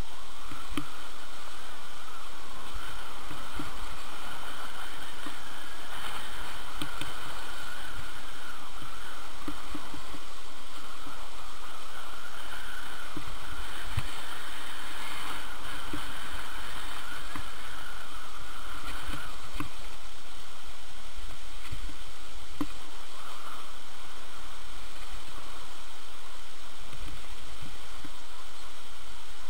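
Skis sliding and scraping over packed snow while wind rushes over the microphone of a camera skiing downhill, a steady noise with scattered small knocks.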